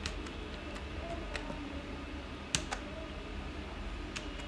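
Computer keyboard keys pressed one at a time, slowly: about five separate clicks spaced roughly a second apart, the loudest about two and a half seconds in, over a faint steady low hum.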